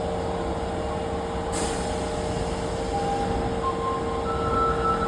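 Osaka Metro 22-series subway train standing at the platform with a steady electrical hum. A short, sharp burst of air hiss comes about a second and a half in, and near the end a few high tones step upward in pitch as the train readies to pull away.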